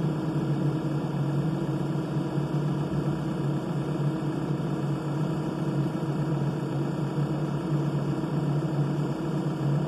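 Diesel engine of a Case 580ST backhoe loader idling steadily, a constant low hum with no change in revs.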